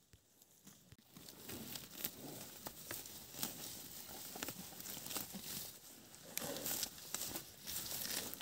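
Dense rustling and crackling of dry vegetation with many small sharp snaps, starting about a second in.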